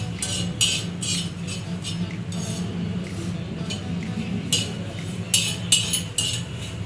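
Spatula scraping and clinking on an iron tawa while stirring whole spices as they dry-roast, in irregular strokes several a second, a few sharper ones in the second half, over a low steady hum.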